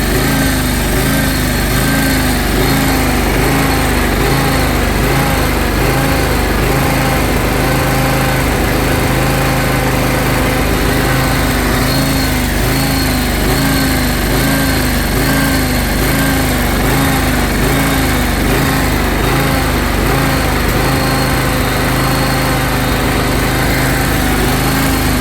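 John Deere X540 lawn tractor engine idling unevenly, hunting up and down, its pitch rising and falling about twice a second. The owner takes this for fuel starvation, because choking it makes it run smooth.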